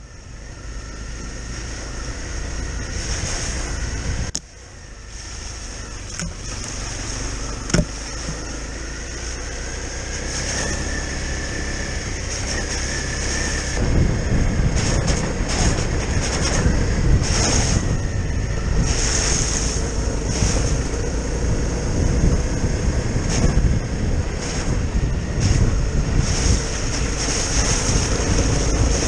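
Honda CRF250L single-cylinder four-stroke trail bike running along a muddy green lane, its engine heard under heavy wind buffeting on the camera microphone. The sound cuts and changes character about four seconds in and again about fourteen seconds in, where clips are joined, and the wind rumble is heavier after the second cut.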